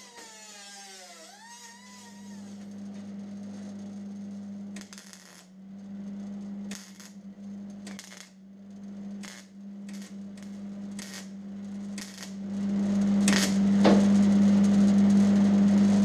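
Sheet-metal work on a car fender: a power tool winds down at the start, then about a dozen short noisy bursts on the metal follow, over a steady low machine hum that gets louder near the end.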